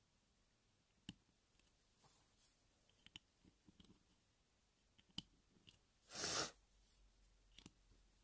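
Faint clicks of small plastic LEGO pieces being handled and pressed onto a LEGO plate, a few single clicks spread out. About six seconds in there is a short, louder rush of noise lasting about half a second.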